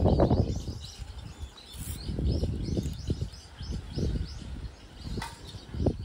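Small birds chirping repeatedly, short high calls thickest in the middle, over crackling and rustling from hands working through the bare roots of a pine. The handling noise is loudest at the start.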